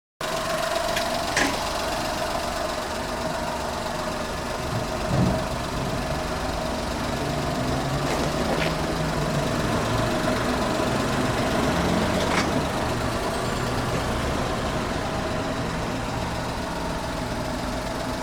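Car engine running steadily at idle, with a few light clicks and one dull thump about five seconds in.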